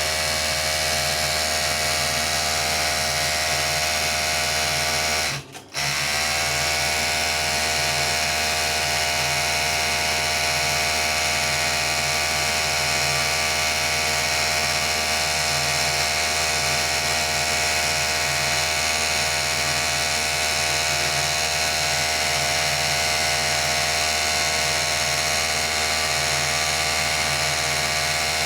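Overlock sewing machine (serger) running at a steady speed as it stitches and trims a strip of fabric. About five seconds in it stops for a moment, then starts again, its hum rising back up to speed.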